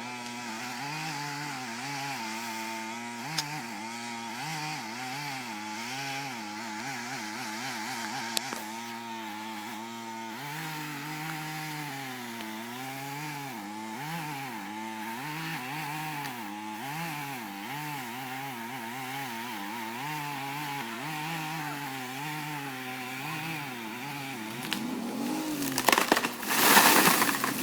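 Chainsaw running and cutting, its engine pitch wavering up and down as it works under load. About two seconds before the end there is a much louder burst of noise.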